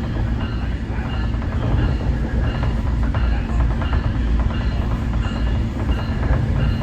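Nippon Sharyo diesel multiple unit train running along the track with a steady low rumble. Its warning bell rings in even, repeated strokes, used in place of the horn through a railroad-crossing quiet zone.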